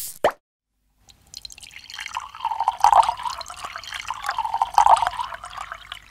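A short pop, then after a second of silence liquid poured into a glass, splashing and gurgling with bursts of louder pouring.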